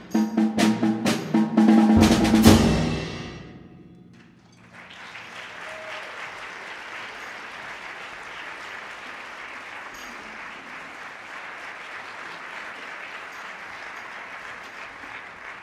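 Percussion ensemble closing a piece with a quick run of loud strokes on timpani, bass drum and cymbals, the last and loudest about two and a half seconds in, ringing out and dying away over the next second or so. About a second after the ring fades, an audience starts applauding steadily.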